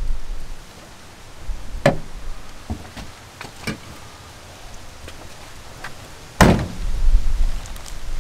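A few knocks and clunks as things are handled while unloading a car, then one loud slam about six and a half seconds in.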